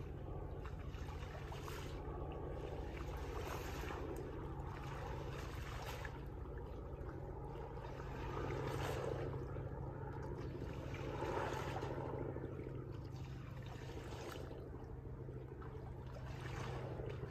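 Lake water sloshing and splashing around a person wading waist-deep and sweeping the water with her hands, swelling louder a few times, over a steady low rumble of wind on the microphone.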